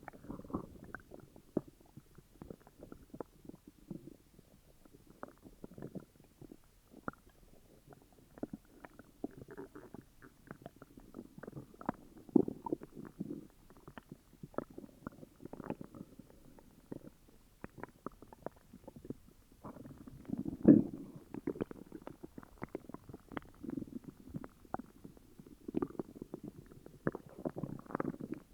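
A person's upset stomach growling and gurgling: a constant, irregular run of bubbly gurgles, little pops and low rumbles, with the loudest growl about three-quarters of the way through.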